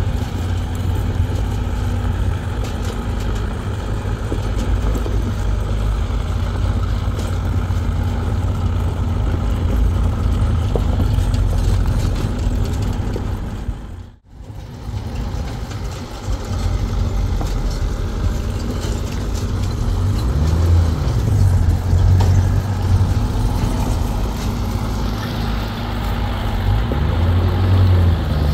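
A motor vehicle's engine running with a steady low rumble. It breaks off briefly about halfway through, and later the engine note rises and falls twice.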